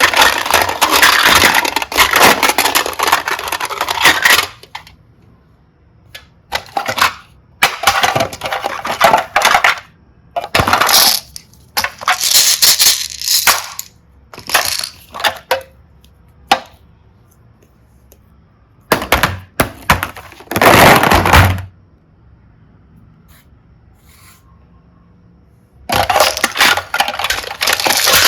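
Crackling, crunching sounds of slime or clay being worked by hand, coming in bursts of one to four seconds with short quiet pauses between them.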